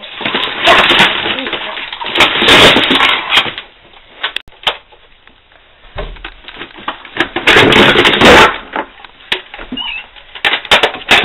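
Rustling and clattering from digging through a bin of toys and plastic bags, in three loud bursts with quieter stretches between.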